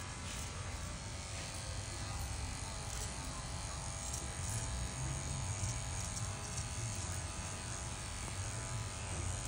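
Steady buzz of electric hair clippers running.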